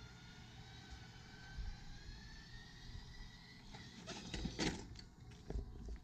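A motorhome's electric patio awning retracting: a faint motor whine rising slowly in pitch, then a few knocks and clunks about four seconds in as the awning arms fold closed against the coach.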